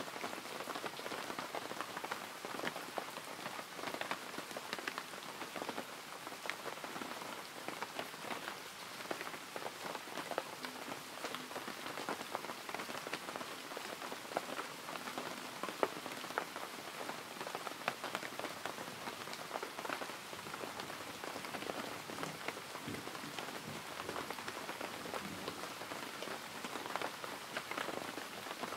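Steady rain falling, a constant hiss scattered with many small drop ticks.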